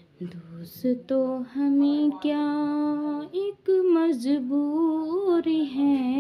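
A woman's voice singing unaccompanied in long, drawn-out notes: one held steady, then after a short break, notes wavering up and down.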